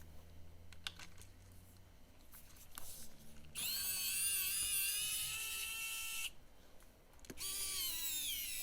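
Small electric screwdriver driving a wheel screw into an RC truck's hub in two runs of a high motor whine, the second dropping in pitch near the end as the screw tightens.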